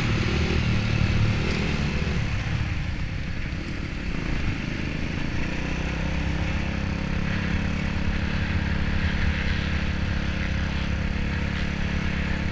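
Motocross dirt bike's engine running steadily at low revs as the bike is ridden slowly.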